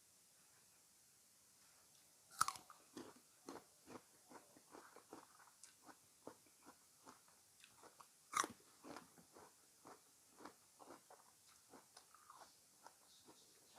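A person bites crisply into fresh fruit twice, about six seconds apart, and after each bite chews it wetly and crunchily, heard close up.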